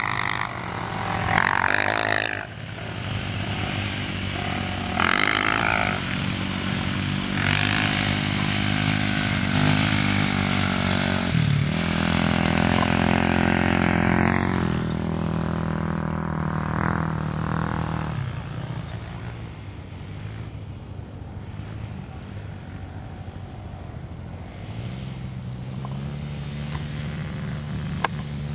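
Quad (ATV) engines running and revving, their pitch rising and falling as the riders throttle up and ease off across the sand. Loudest in the first half, they fall away in the middle and pick up again near the end, where one sharp click is heard.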